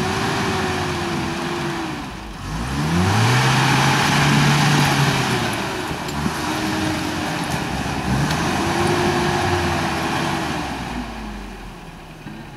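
Toyota pickup rock crawler's engine revving up under load as it climbs over rocks: twice the pitch climbs, holds for a couple of seconds and falls back, and it grows quieter near the end.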